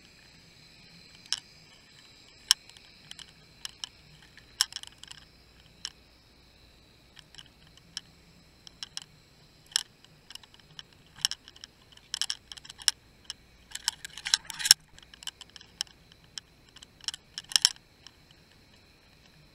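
Underwater recording of irregular sharp clicks and ticks, some single and some in quick clusters, over a faint steady high-pitched whine.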